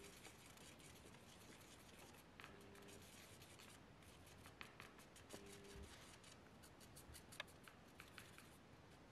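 Faint scratching and light tapping of a thin paintbrush mixing paint in the wells of a plastic palette, in many short irregular strokes.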